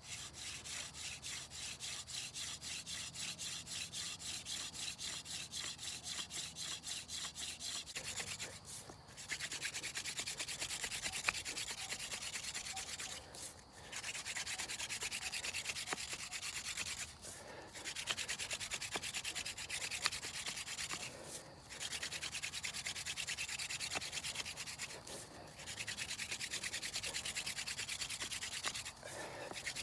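Wooden hand-drill spindle spun back and forth between the palms, its tip grinding in the notch of a wooden fireboard to make a friction fire: a rhythmic hissing rub. After about eight seconds the spinning becomes a denser, steadier rub, broken by brief pauses every four seconds or so.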